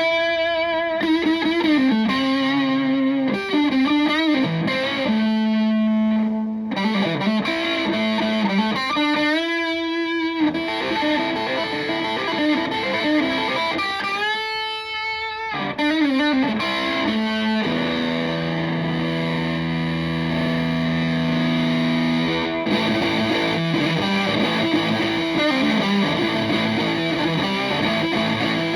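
Stratocaster electric guitar through a Tone Bender MKII fuzz pedal into a Fender Twin Reverb–style amp, playing a fuzzy lead line. Some notes are held long with wide vibrato, and a steady sustained note rings for several seconds past the middle.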